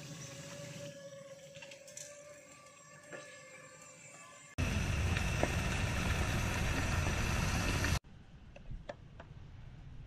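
Food frying in a pan on a portable gas camp stove: sausages sizzling in hot oil. The sizzle jumps much louder and denser at about four and a half seconds and cuts off suddenly near eight seconds, followed by a quieter stretch with a few faint clicks.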